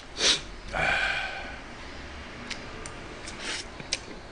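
A person eating: a sharp breath and a brief wordless vocal sound in the first second and a half, then a few light clicks of a spoon against a bowl.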